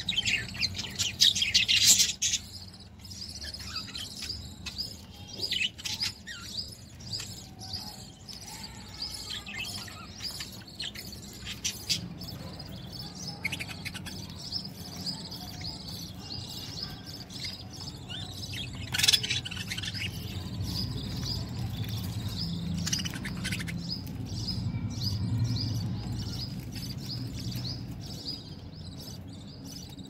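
Budgerigars chirping and warbling throughout, a flock chattering with short, busy calls that get louder near the start and again around the middle. Scattered short clicks run under the calls as the birds peck at the food.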